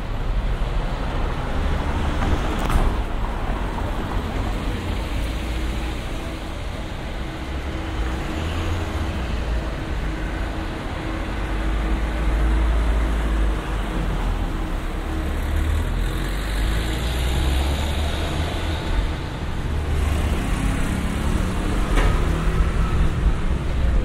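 Outdoor town-street ambience: a steady low rumble with an even hiss over it. There are two sharp clicks, about three seconds in and near the end.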